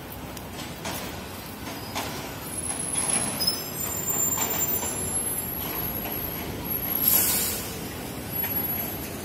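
Busy city street traffic with buses and cars passing close by. A short, loud hiss of air about seven seconds in is the loudest moment.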